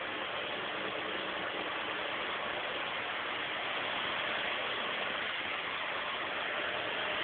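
A Volkswagen Gol's engine idling, heard at the rear of the car as a steady, even exhaust rush.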